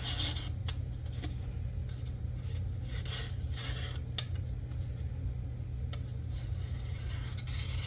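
Blade of a Begg BG039 slip joint knife slicing through material in several short, irregular scraping strokes as its edge is tested, with a sharp click about four seconds in; the edge is super sharp all the way to the tip.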